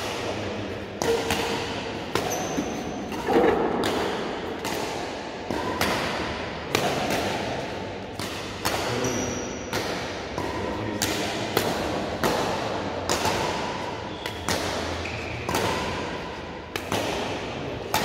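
Badminton rackets striking a shuttlecock back and forth in a fast doubles rally: sharp hits less than a second apart, each echoing in a large hall.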